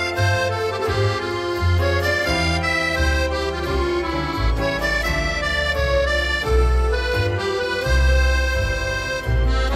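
Instrumental background music: a tune of held pitched notes over a changing bass line.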